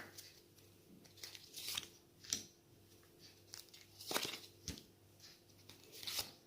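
Fortune-telling cards being shuffled and laid out by hand, with short papery rustles and snaps every second or two.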